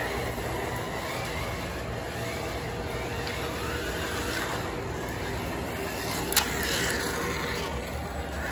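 Lionel O-gauge toy trains running on their three-rail track, a steady rattling rumble with a faint wavering whine above it. One sharp click comes about six seconds in.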